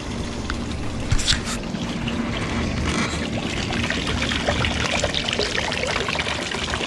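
Water running from the spouts of a hose-fed PVC-pipe water table and pouring into its water-filled basin, with small splashes and clatters of toys in the water. A brief louder knock about a second in.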